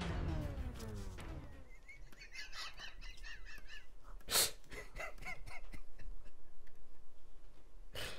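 Hard, breathless laughter: a long falling wail, then a high wavering squeal, a sudden burst of laughter, and rhythmic wheezing pulses of about five a second.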